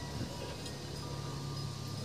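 Wind chimes ringing faintly, their long-held tones over a steady low hum.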